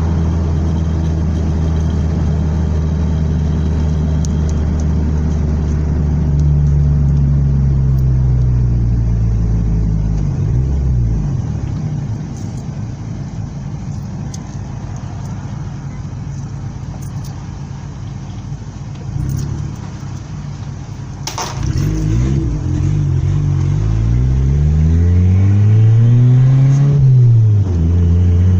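Car engine running and revving: its pitch climbs and falls back twice, with a quieter, lower stretch between, and a sharp click in the second half.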